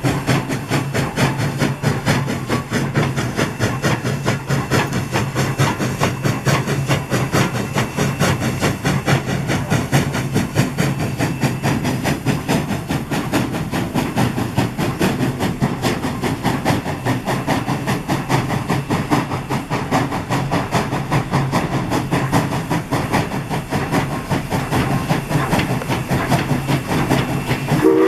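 Alco 0-6-0 steam locomotive running at speed, its exhaust beating fast and even. Its steam whistle starts to sound right at the end.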